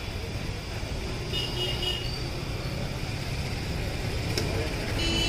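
Oil bubbling and sizzling around a spiral-cut potato on a stick in a steel deep-fry tray, over a steady low rumble.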